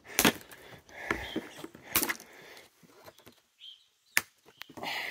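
A few sharp snaps, a second or two apart, as side cutters cut through the zip ties holding a dirt bike's seat on, with softer handling rustle between.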